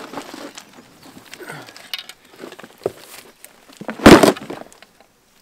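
Clattering and rustling as a plastic storage crate is pulled out of a vehicle storage locker and handled, with one loud heavy thump about four seconds in as it comes down.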